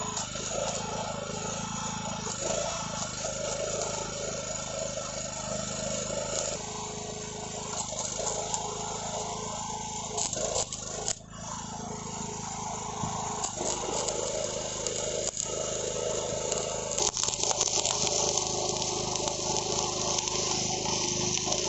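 Electric arc welding on the steel insert of a railway crossing sleeper: a steady crackling sizzle over a low drone, with a brief break in the arc about eleven seconds in.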